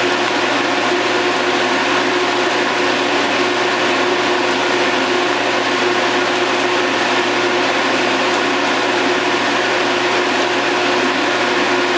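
TIG welder running while steel rifle parts are welded: a steady hum with a hiss over it that does not change.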